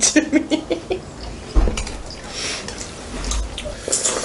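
Wet eating sounds: a person slurping and chewing soup from the stew, with a dull knock about one and a half seconds in.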